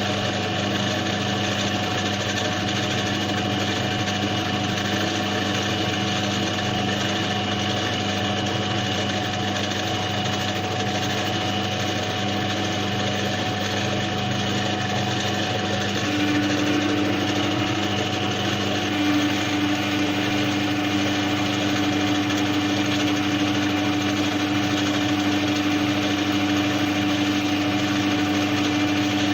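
A power tool's electric motor running steadily, used in cleaning up the burnt commutator of a car starter motor's armature. A little past halfway a new, slightly higher hum joins in and the sound grows a bit louder.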